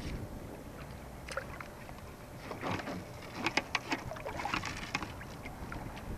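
Sea kayak on choppy water with handling noise: a cluster of sharp clicks, knocks and splashes a few seconds in, over a low wind rumble.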